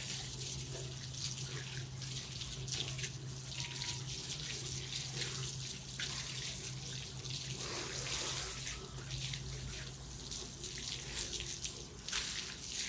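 Running water from a shower spray splashing on a dog being washed, with a steady low hum underneath.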